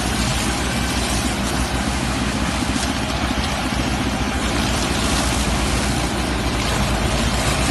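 Whole-stalk sugarcane harvester running steadily in the field: a continuous engine rumble under a dense, even machinery noise.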